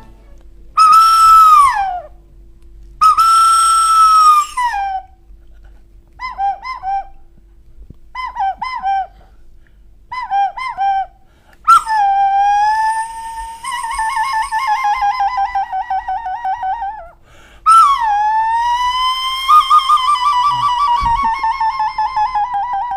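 A small hand-held blown whistle played as a scary forest sound effect: two long whistled calls that drop away at the end, three pairs of short dipping chirps, then two long wavering, howl-like tones.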